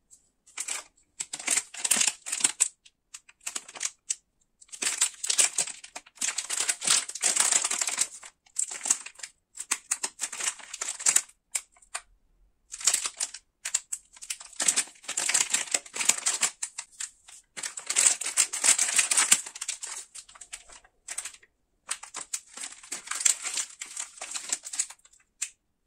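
Plastic candy wrapper crinkling as gloved hands handle it and pull it open. The crackling comes in bursts of a second or several seconds, with short pauses between.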